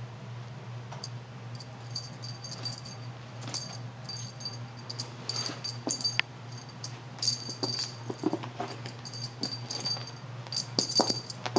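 Cat playing with a feather wand toy on carpet: quick, irregular bursts of high jingling as the toy is jerked and batted, with a few soft thumps and scuffs of paws, the loudest near the end. A steady low hum runs underneath.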